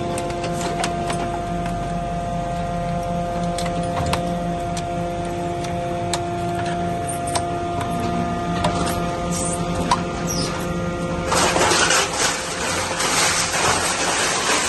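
Automatic metal baler running: a steady hydraulic hum with scattered clicks and knocks of aluminium extrusions. About eleven seconds in, a louder harsh clattering starts and carries on to the end.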